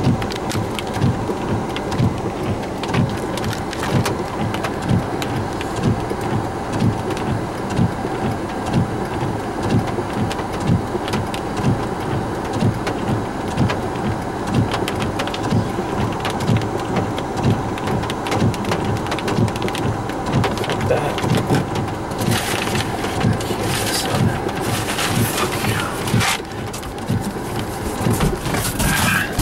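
Rain hitting a moving car in a thunderstorm, heard from inside the cabin over steady road noise, with frequent low thuds. From about 22 seconds in, stronger surges of hiss come and go.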